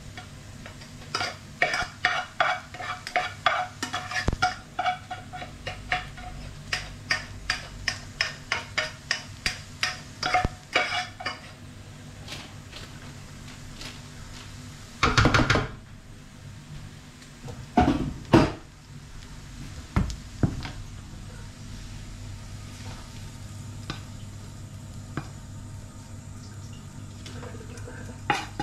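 A spoon tapping and scraping against a saucepan in a quick run of clicks as cooked rice is spooned out into an oven tray. This is followed by a few louder scrapes and clatters, then a wooden spoon scraping a fried mixture out of a frying pan.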